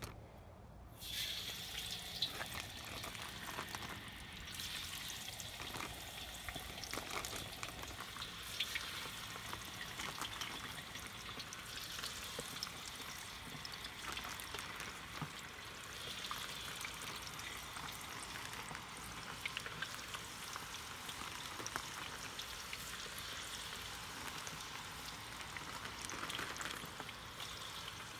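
Chicken wings deep-frying in peanut oil at about 350°F in a wok: a steady sizzle with scattered crackling pops. It starts suddenly about a second in as the first wings hit the oil.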